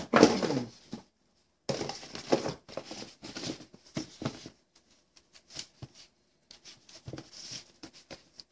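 Non-woven fabric dust bag rustling and crinkling as it is handled and pulled off a pair of sneakers, in irregular bursts. The loudest bursts come in the first few seconds, and after about five seconds it thins to scattered light rustles and taps.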